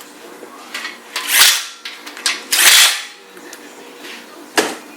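Metal-on-metal work on the main bearing cap of a Ford FE V8 block as it is seated for torquing: two loud, sharp knocks with a short ring about a second apart, then a single sharp click near the end.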